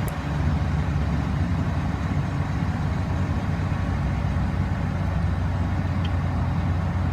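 2012 Dodge pickup truck's engine idling steadily, with a faint click near the start.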